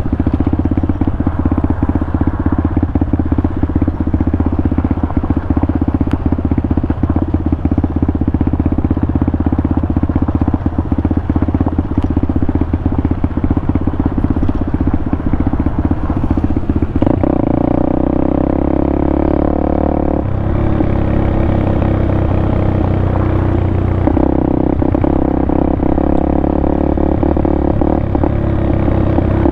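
Pitster Pro 190 FSE pit bike's single-cylinder four-stroke engine running steadily under way on the trail. Its engine note changes several times in the second half as the revs shift.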